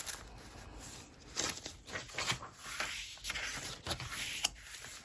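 Paper rustling and sliding as junk journal pages and tucked-in journal cards are handled and turned, in several short swishes.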